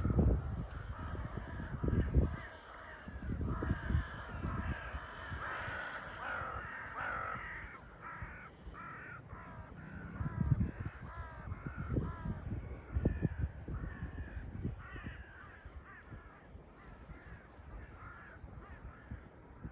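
A flock of crows cawing, many calls overlapping with no break and busiest a few seconds in, over irregular low rumbling noise.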